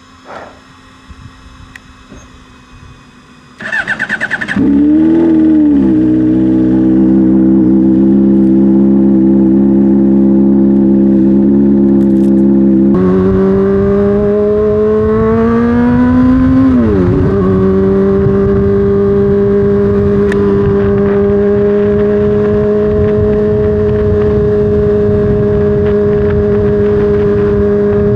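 Honda CBR600RR inline-four with an aftermarket slip-on exhaust starting up: the starter cranks for under a second about four seconds in, the engine catches and settles into a steady idle. Partway through, the idle pitch steps up, dips briefly and then holds steady and slightly higher.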